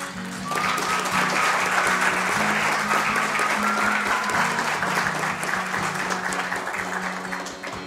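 Audience applauding, the clapping starting about half a second in and fading near the end, over background music.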